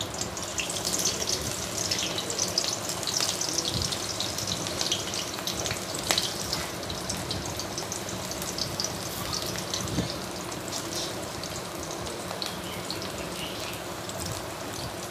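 Chopped onion sizzling in hot oil in a wok: a steady frying hiss with scattered small crackles and pops.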